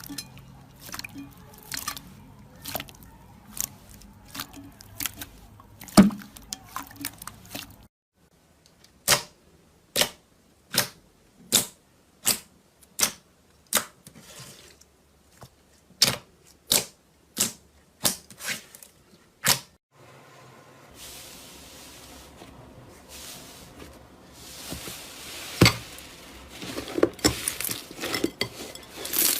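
Slime being squished and poked. First comes a run of sharp clicking pops, then about a dozen single pops, each a little under a second or so apart, and from about two-thirds of the way in a denser crackling, crinkly noise that grows louder toward the end.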